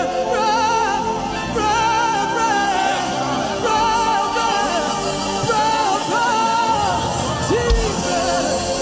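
Gospel worship music: a solo voice sings long, wavering held notes over a sustained instrumental backing.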